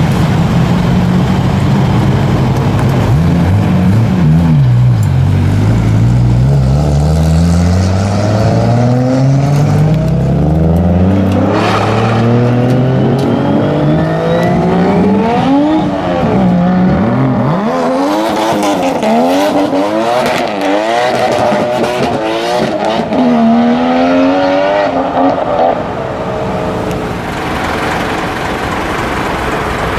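Modified Japanese sports car engines accelerating hard, their pitch climbing, dropping at each gear change and climbing again, several times over.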